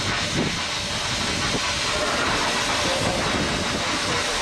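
Steady hiss of steam from a standing Hunslet 0-6-0 saddle tank steam locomotive.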